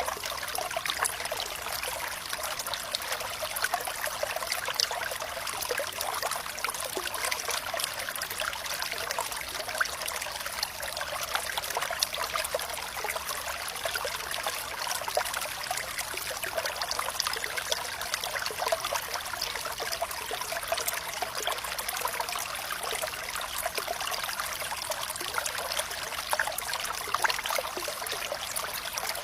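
Flowing water trickling and splashing steadily, a bright even rush of many small droplets with little deep rumble.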